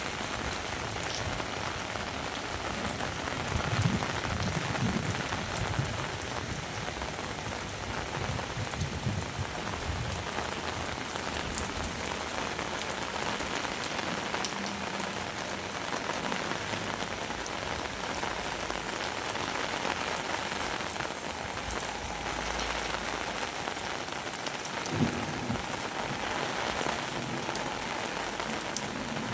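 Heavy rain falling steadily, a dense even hiss, with a louder low rumble a few seconds in and one sharp knock near the end.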